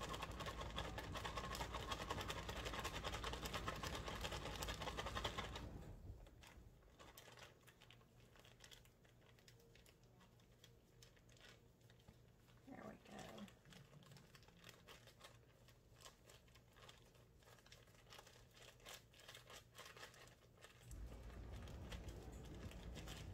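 Plastic ground-beef tube wrapper and thin plastic gloves crinkling faintly as the raw meat is squeezed out of the package. A steady machine hum runs under it at first, stops suddenly about six seconds in and comes back near the end.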